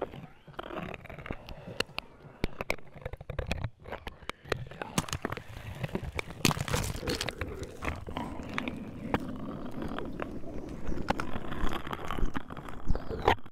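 Dense crackling and crunching noise with many sharp clicks scattered through it, stopping abruptly at the end.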